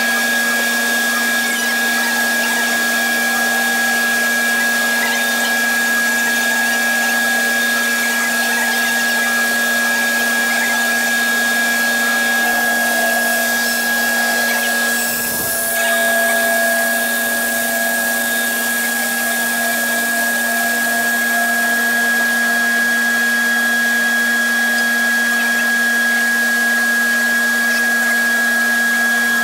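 Large bandsaw running steadily with its dust collector, the blade cutting through an old weathered barn-wood beam as it is fed by hand; the steady hum and hiss dip briefly about halfway through.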